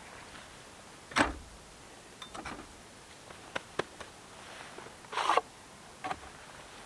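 Scattered handling knocks and clicks: one firm knock about a second in, a few light clicks, then a short clatter a little after five seconds. No saw is running.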